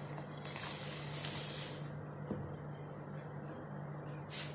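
Dry vermicelli mix sliding off a glass dish into a pan of hot milk: a soft hissing rush lasting about a second and a half, over a steady low hum. Near the end comes a brief scrape as a wooden spoon starts stirring.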